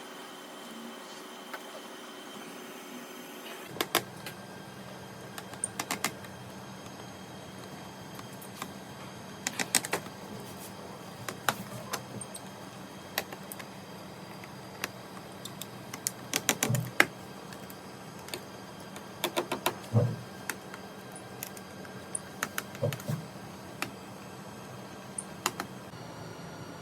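Irregular clicks and taps of hands working on a laptop, some in quick clusters, over a steady hum that starts a few seconds in.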